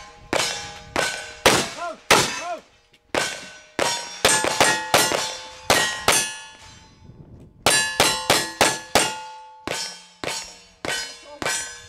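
A rapid string of black-powder gunshots, each shot followed by the ringing of a struck steel target, with two short pauses for a change of gun.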